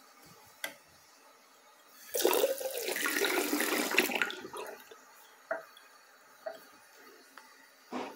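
Bathroom sink tap turned on, water running into the basin and drain for about two seconds, then fading as it is turned off. A few faint clicks come before and after.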